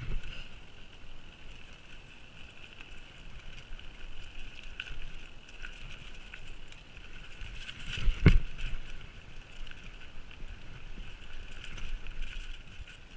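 Mountain bike riding over a dirt singletrack trail: steady tyre and frame noise with small clicks and rattles, and a heavy thump about eight seconds in as the bike hits a bump.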